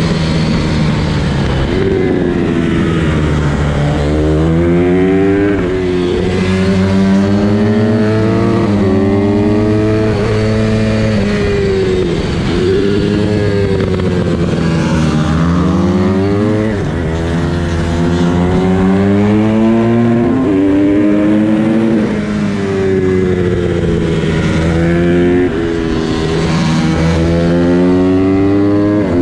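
Supermoto motorcycle engine heard from on board, revving hard as it accelerates: the pitch climbs and steps down at each gear change, then drops as the bike slows for a corner, and the cycle repeats several times.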